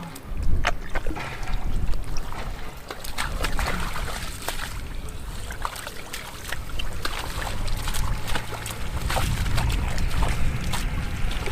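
Shallow muddy water splashing and sloshing, with many scattered sharp clicks and knocks and a heavy low rumble underneath.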